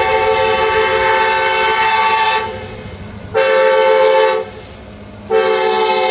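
Diesel locomotive air horn sounding a multi-note chord for a grade crossing. A long blast stops about two and a half seconds in, a short blast follows a second later, and another long blast begins near the end. This is the standard long-long-short-long crossing signal.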